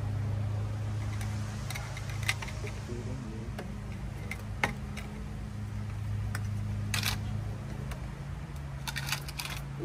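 Light plastic clicks and knocks of PVC pipe and fittings being handled and pushed together in a dry fit, a few scattered taps with a short cluster near the end, over a steady low hum.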